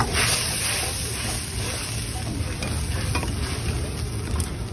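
A steel ladle stirring Manchurian sauce in a hot iron wok. The sauce sizzles loudly right at the start and then settles to a steady sizzle, over a continuous low rumble.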